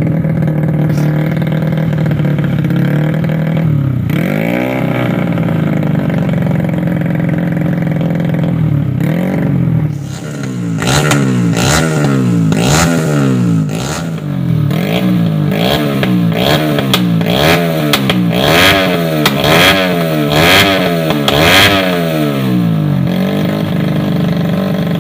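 Grasstrack dirt bike's engine running through a freshly made racing exhaust: idling, blipped twice, then revved in more than a dozen quick throttle blips, about one a second, with a rattle on each, before settling back to idle. The builders consider the engine not quite healthy.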